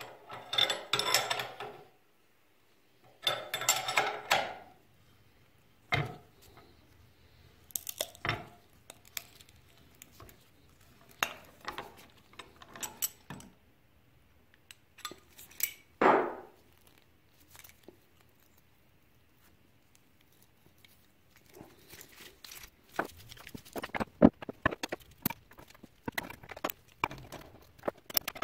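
Metal clinking and clattering of a spanner and a steel bearing puller being fitted and worked on a ball bearing in a reel mower's side frame, in separate bursts with quiet gaps between. A run of quick clicks near the end.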